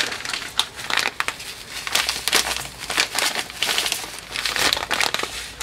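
Plastic bag of breadcrumbs crinkling and rustling as it is handled and tipped, pouring crumbs into a stainless steel bowl; a busy run of irregular crackles.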